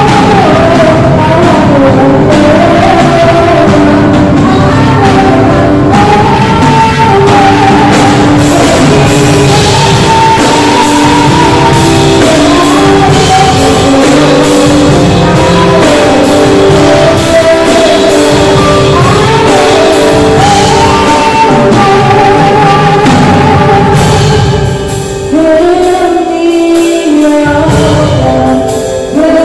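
A woman sings a slow worship song into a microphone, with electronic keyboard chords and a drum kit backing her. About 25 seconds in, the accompaniment thins to a quieter stretch for a few seconds, then fills back in near the end.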